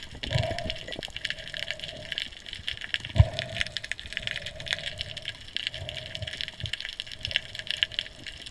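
Underwater ambience picked up through a camera's waterproof housing: a steady dense crackling, with a faint hum that comes and goes. A sharp knock about three seconds in is the loudest sound, with a softer one near the start.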